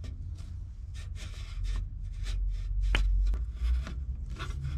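Hands working a rubber hose with a brass hose joiner onto a transmission oil cooler line: irregular rubbing and scraping of rubber against metal fittings, with one short sharp sound about three seconds in.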